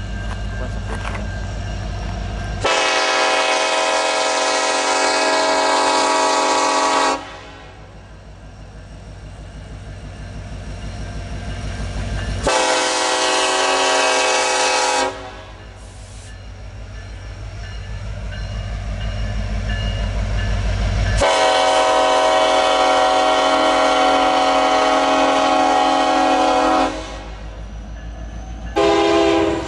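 Diesel freight locomotive sounding its multi-chime air horn in four blasts as it approaches: a long one, a shorter one, another long one, then a short one near the end. Between the blasts, the rumble of the locomotive and its loaded coal hoppers grows louder.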